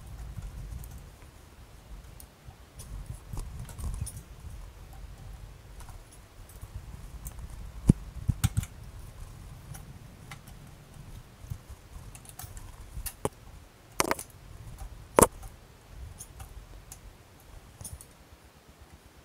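Scattered clicks and light metallic clinks of hardware and hand tools being handled during assembly, with a few sharp knocks about eight seconds in and twice more around fourteen to fifteen seconds, over a low rumble.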